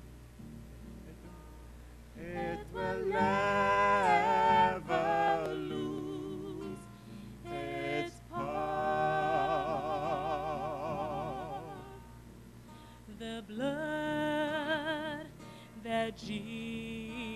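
Nylon-string classical guitar playing a slow accompaniment. About two seconds in, a woman begins singing a slow gospel hymn over it in long held phrases with heavy vibrato.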